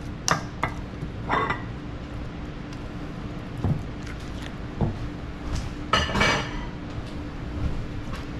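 Silicone spatula scraping thick coleslaw out of a glass mixing bowl into a smaller glass bowl and stirring it, with scattered clinks and knocks of glass and spatula. The loudest knocks come about six seconds in.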